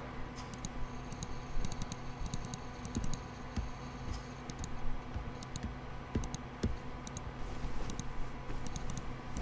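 Light, quick clicking in short clusters of two or three, repeating irregularly over a steady low electrical hum.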